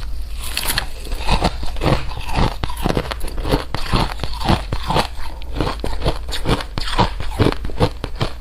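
Close-miked chewing of crisp, crunchy food: a steady run of sharp crunches, about three or four a second.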